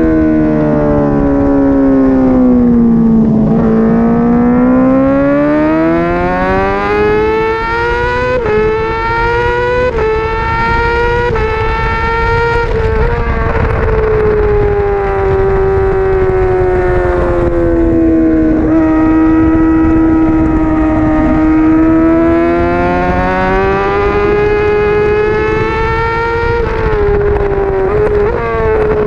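Honda CBR600RR's 599 cc inline-four engine at racing revs, heard onboard. The pitch drops steeply in the first few seconds, then climbs and jumps down four times in quick succession as the gears change up. It sags slowly for several seconds, then climbs again with more quick gear changes near the end.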